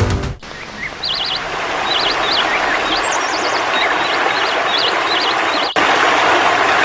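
Rainforest ambience: birds chirping with short, repeated warbling calls over a steady hiss of background forest noise.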